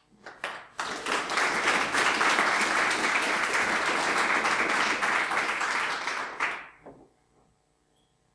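Audience applauding: a few scattered claps at first, then about six seconds of dense clapping that dies away near the end.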